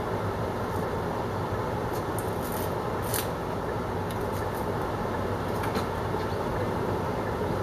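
Sliced steak frying in a non-stick pan: a steady sizzle, with brief crackles now and then.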